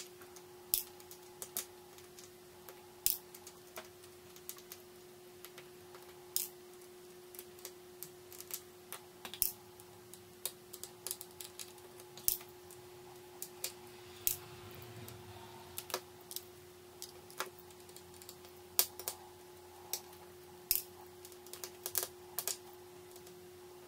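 Small Phillips screwdriver and tiny screws clicking against the LG G3's plastic rear housing as the screws are backed out: a string of sharp, irregular light clicks, about one or two a second, over a faint steady hum.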